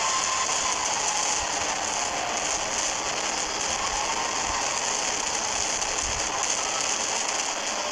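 Fireworks crackling densely and steadily, a fizzing patter of many small bursts, with a few faint low thumps.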